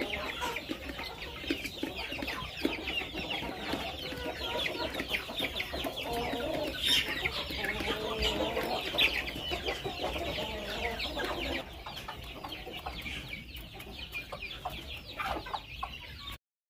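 A flock of young chickens clucking and cheeping together in a dense, overlapping chorus of short calls. The chorus gets a little quieter about two-thirds of the way through and cuts off suddenly near the end.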